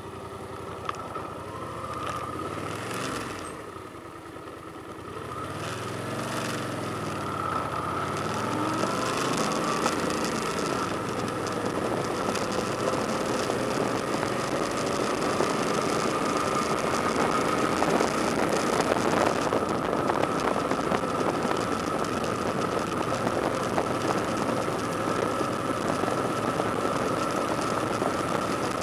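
Motorcycle engine running while the bike is ridden, with wind rushing past. The engine note rises and falls through the first few seconds, then grows louder and settles into a steady cruise from about eight seconds in.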